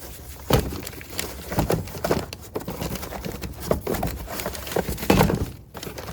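Handling of new replacement door handles and their packaging: irregular rustling, crinkling and small knocks.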